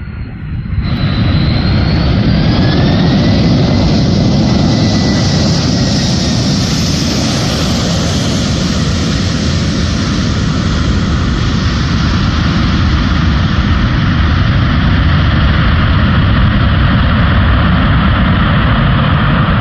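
Jet engine noise from a landing Airbus A330-200 airliner: the level jumps sharply about a second in, whining tones rise over the next couple of seconds, and then a loud, steady rush continues.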